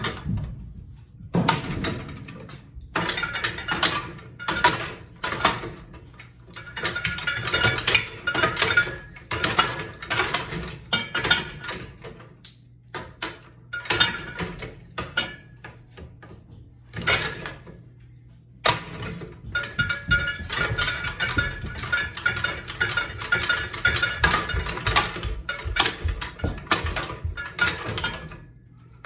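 A ceiling fan being smashed: irregular metallic clattering and banging in clusters, with short pauses between them. A low steady hum runs through much of the second half.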